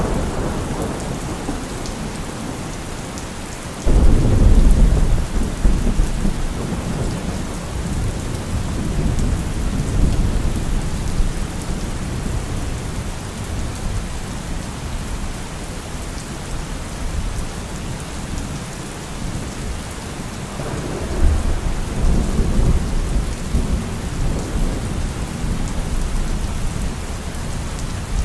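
Heavy rain falling steadily in a thunderstorm, with thunder: a sudden loud clap about four seconds in that rumbles on for several seconds, and a second, weaker roll of thunder about three quarters of the way through.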